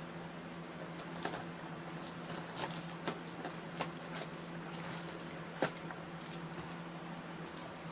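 Scattered light clicks and rustling handling sounds over a steady low electrical hum, with one sharper click about two-thirds of the way through.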